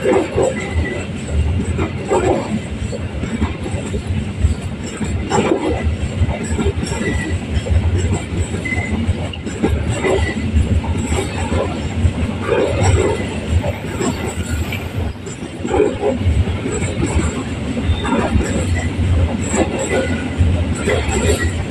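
Coal freight train's open wagons rolling past close by: a steady heavy rumble of steel wheels on the rails, with a louder clatter every two to three seconds.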